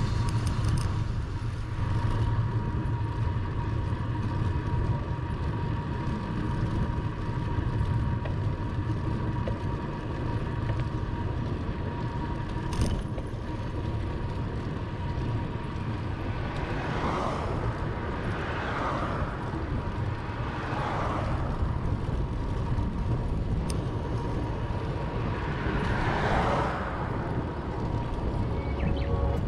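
Wind rumbling on the microphone of a camera riding along on a bicycle, with road noise. Several motor vehicles pass, swelling and fading, a little past the middle and again near the end.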